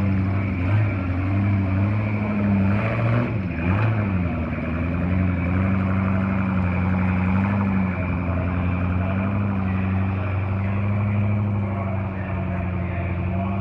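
Off-road four-wheel-drive truck's engine running steadily, with a brief dip and rise in revs about three seconds in.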